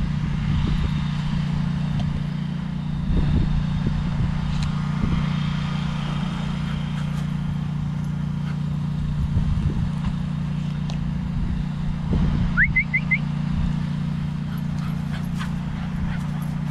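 Steady low rumble of road traffic. About twelve seconds in there is a short rising high squeak, then three quick squeaks.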